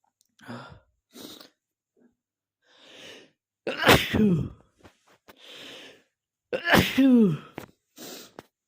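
A man sneezing twice, about three seconds apart. Each is a sharp burst ending in a falling voiced "choo", and short, breathy in-breaths come before and between them.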